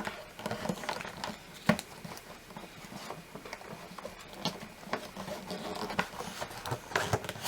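Light, irregular taps, clicks and rustles of a cardboard gift box being handled and picked at, with one sharper knock a little under two seconds in.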